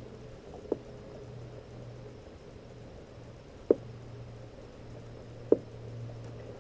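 Three short, sharp knocks, a second or three apart, over a steady low hum.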